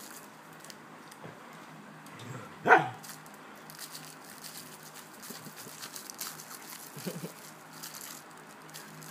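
Small dog tussling with a hand puppet, giving one short, loud bark about three seconds in, with faint rustling and mouthing noises around it.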